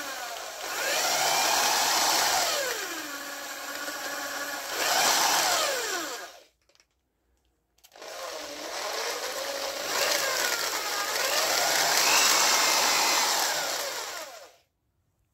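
Handheld electric drill spinning the crankshaft of a model V8 engine, its motor speeding up and slowing down so the whine rises and falls in pitch. It stops about six seconds in, starts again a second and a half later, and stops shortly before the end.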